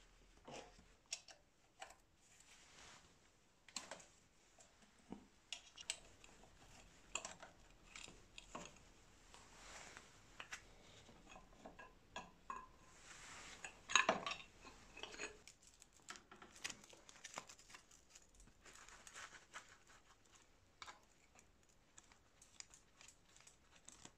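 Small metal clicks and clinks of a wrench and hand tools against bicycle brake parts as the brakes are unbolted, irregular throughout, with a louder cluster of clinks a little past halfway.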